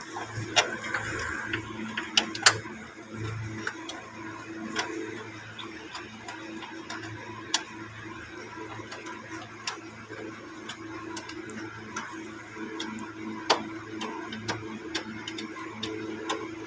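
Hyundai Grand i10 engine running with an even, ticking pulse under a steady hum, the car being checked for a misfire. Several sharp metallic clicks sound over it, the loudest a few seconds apart.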